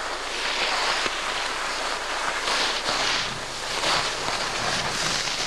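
Skis hissing and scraping over packed snow in surges that swell and fade every second or so, turn after turn.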